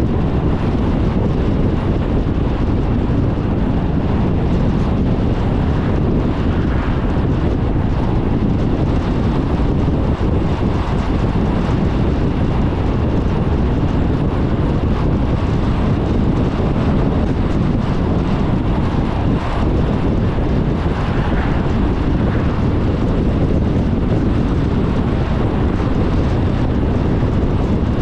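Steady rumble of a car driving along the road: tyre and wind noise, even throughout.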